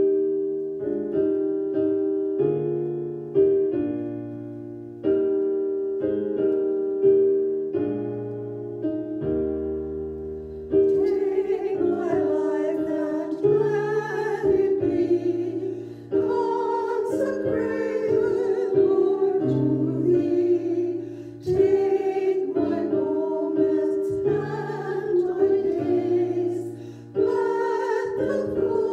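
Grand piano playing a hymn introduction in slow, even chords, then women's voices start singing the hymn with the piano about eleven seconds in.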